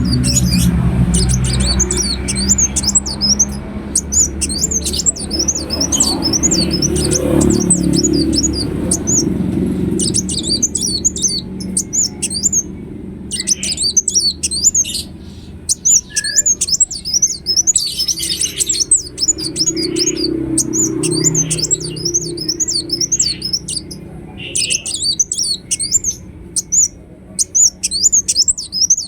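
Ruby-cheeked sunbird singing: rapid, high-pitched twittering phrases repeated with only short pauses. A low rumble sits under the song for the first ten seconds or so.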